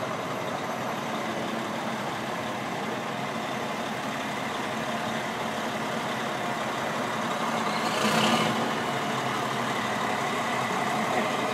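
Diesel engine of a tractor-trailer running steadily as the truck crawls along, with a short, louder burst of noise about eight seconds in.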